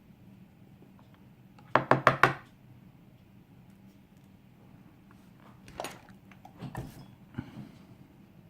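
Hand work on a lock with small gutting tools at a work surface: four quick loud knocks in a row about two seconds in, then a few lighter clicks and taps near the end.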